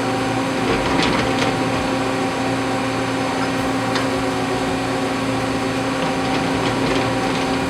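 CNC machine running as it cuts a metal mandrel, a steady whir with a constant hum.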